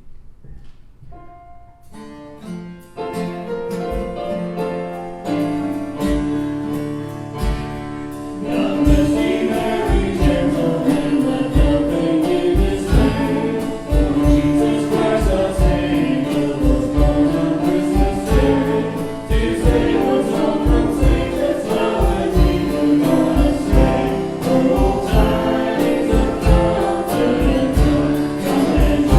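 Christian worship song starting up. A few soft single notes, then instruments come in about two seconds in, and a steady drum beat joins around five seconds. The full band with voices singing swells louder from about nine seconds.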